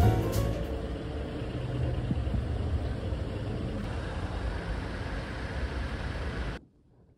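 Steady low outdoor rumble with no clear tones, ending abruptly near the end.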